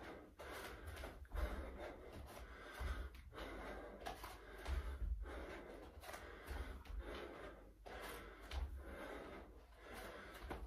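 A man breathing hard and audibly while doing lunges, with dull thuds from his feet landing on the floor about every one and a half to two seconds.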